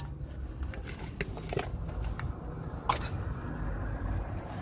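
Gloved hands handling a removed CV joint and its rubber gaiter: scattered small clicks and rustles of metal and rubber, with one sharper click about three seconds in, over a low background rumble.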